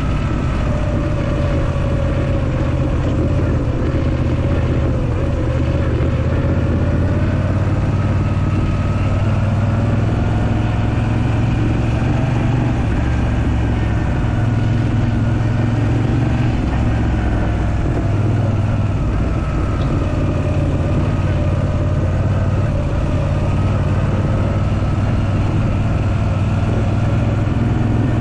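Moto Guzzi V7 III Racer's air-cooled transverse V-twin running under way, its engine speed rising and falling gently as the motorcycle is ridden.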